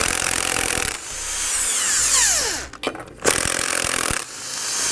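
Cordless impact wrench running in two bursts, spinning lug nuts off a trailer wheel, with a short pause between them about two and a half seconds in. Each burst ends in a falling whine.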